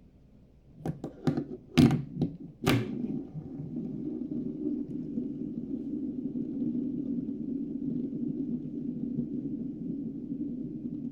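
A few sharp clicks and knocks as a Rubik's cube fidget spinner is handled, then a steady low whirr as it spins.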